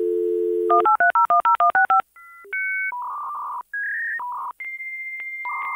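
Dial-up modem connecting over a phone line: a steady dial tone, then a quick run of about nine touch-tone digits being dialed, then a series of steady handshake beeps and tones at changing pitches, with a long high tone near the end.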